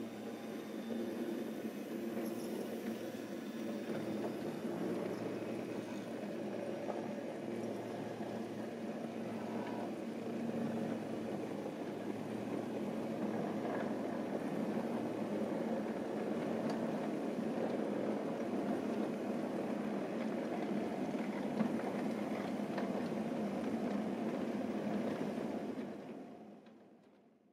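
A 7 mm scale model train rolling past on its track: a steady rumble of wheels on rail with a few faint ticks, fading out near the end.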